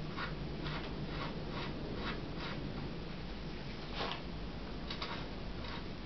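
Steady, evenly spaced ticking, about two ticks a second, with one sharper click about four seconds in.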